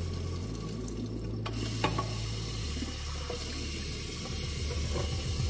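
Water running from a bathroom sink tap while it is splashed onto the face by hand. One sharper splash comes just under two seconds in.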